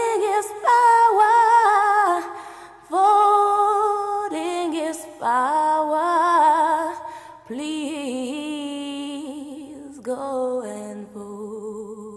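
Unaccompanied solo voice singing long held notes with vibrato, in several phrases separated by short breaths, the last phrase trailing off near the end.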